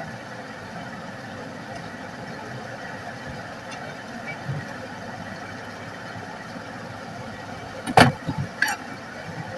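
Steady whirring hum of electric workbench equipment during phone-board soldering, with one loud sharp clack and a few smaller clacks about eight seconds in.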